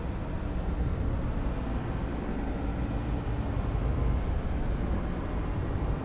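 Dark horror ambience: a steady, low drone with a faint hiss above it and no distinct events.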